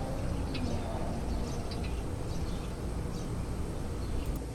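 Outdoor background: a steady low rumble with a few faint, short high chirps scattered through it.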